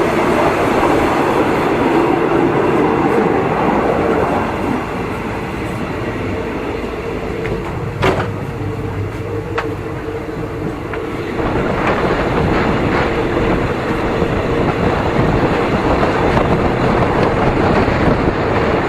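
Train running along the track: a steady rumble with a held hum, one sharp knock about eight seconds in, and a quieter stretch in the middle.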